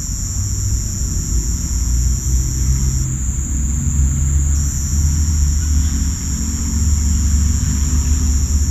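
Crickets and cicadas shrilling in a steady, loud, high-pitched chorus at a couple of pitches. One pitch drops out about three seconds in and returns a second and a half later. Underneath runs a loud low rumble.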